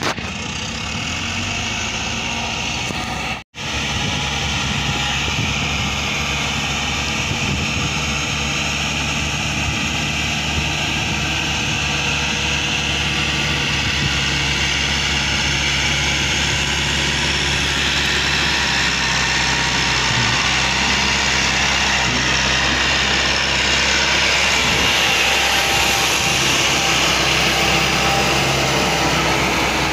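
Diesel tractor engines running steadily and pulling loaded sand trolleys, a little louder near the end as a Massey Ferguson tractor is close by. The sound cuts out for an instant about three and a half seconds in.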